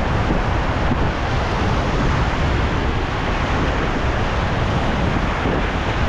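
Steady rush of fast river rapids around an inflatable raft, with wind buffeting the microphone.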